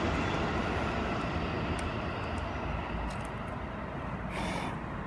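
Bamboo campfire that has just caught, burning with a steady rushing noise and a few small crackles, under a low rumble.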